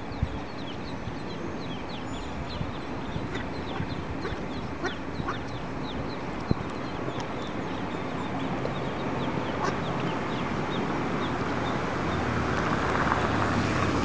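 Mallard ducklings peeping, a run of short, high peeps several a second that thin out later, over a steady hiss that grows louder near the end.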